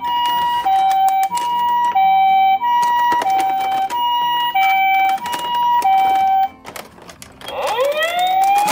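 Toy Nissan Elgrand ambulance's electronic two-tone siren, the Japanese ambulance 'pee-po' alternating a high and a low tone about every two-thirds of a second. It stops about six and a half seconds in, and after a few clicks a rising wail siren starts near the end, climbing and then holding steady.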